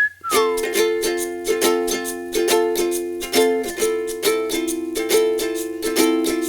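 Background music: plucked strings strummed in a steady, even rhythm over held chords.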